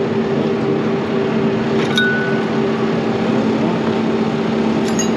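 Tractor engine idling steadily, with two short metallic clinks, about two seconds in and near the end, from the hitch pin being pulled out of the trailer hitch.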